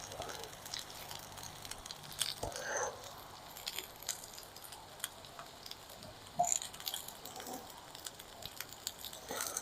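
Sweet potato wedges frying in beef fat in a pan, a soft sizzle with scattered small pops and clicks. A faint low hum stops with a knock about two and a half seconds in.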